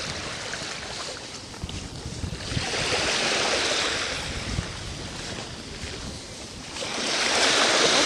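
Small sea waves washing onto a sandy shore. The hiss of the wash swells about three seconds in and again near the end.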